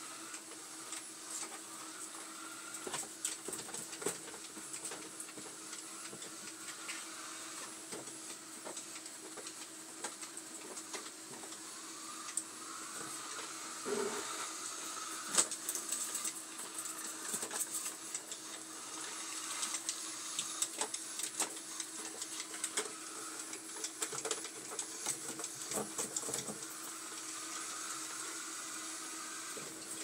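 Robot vacuum running: a steady motor hum with a constant tone and a high whine, broken by irregular clicks and knocks, the loudest about fifteen seconds in.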